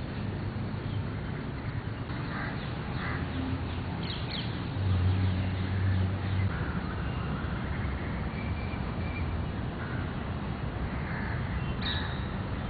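Crows cawing now and then, several short calls spread apart, over a steady low hum that grows louder for a moment near the middle.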